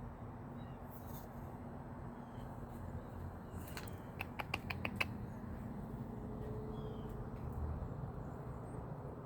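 A cat sneezing lightly: a quick run of about half a dozen short, sharp sneezes a little under four seconds in, over a steady low background noise.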